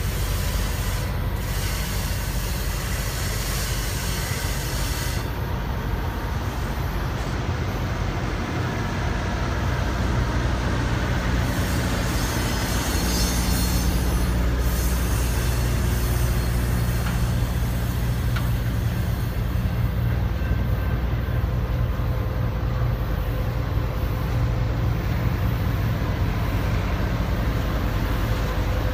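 Intermodal freight train of semi-trailers on flatcars rolling past: a steady, loud low rumble of steel wheels on rail, with a hiss above it and faint thin ringing tones.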